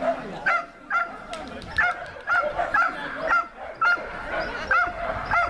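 A dog barking over and over, short barks at about two a second, with voices chattering in the background.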